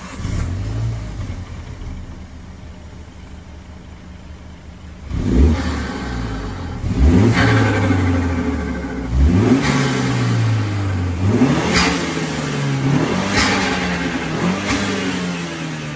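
MINI John Cooper Works 2.0-litre turbo four-cylinder flares briefly, settles to a steady idle, then is blipped about six times, each rev rising sharply and falling back slowly through the exhaust.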